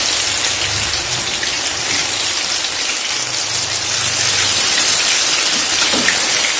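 Pempek Palembang fish cakes, halves of the egg-filled kind among them, deep-frying in hot oil in a small pan: a loud, steady sizzle.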